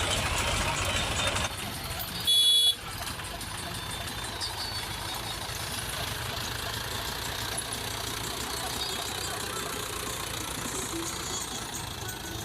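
Diesel engine of a tractor or backhoe loader running steadily, louder for the first second and a half. About two seconds in, a brief loud pitched tone sounds for half a second.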